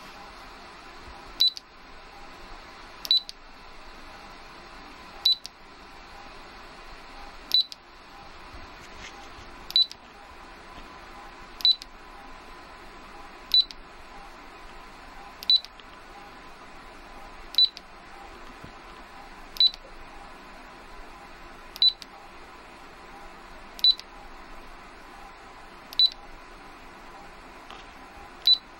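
Raymarine ST4000+ autopilot control head giving a short, high beep each time a key is pressed, about one beep every two seconds, as its user setup menu is stepped through.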